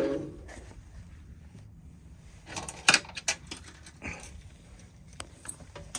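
Brief low thud-like sound right at the start, then a cluster of sharp metallic clicks and knocks about halfway through and a few lighter ticks after: latches being released and a battery compartment panel handled.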